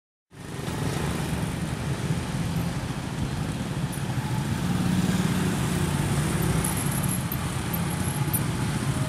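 Road traffic: motorcycles and a car passing, with steady engine and tyre noise that cuts in just after the start.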